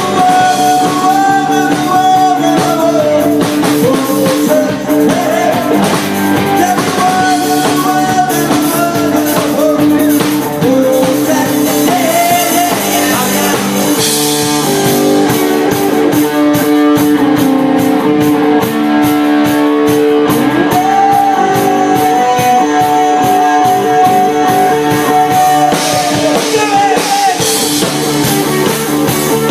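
Live rock band playing loudly: a male singer over electric guitar and drum kit, the drums and cymbals busier from about halfway through.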